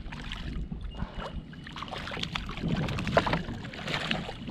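Water slapping and splashing around a plastic fishing kayak, with scattered short knocks and clatter on the hull and a steady low rumble underneath.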